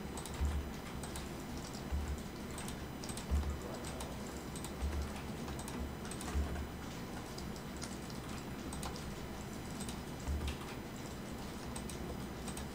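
Scattered clicks of a computer keyboard and mouse at irregular spacing, with dull low thuds every second or two, over a steady background hiss.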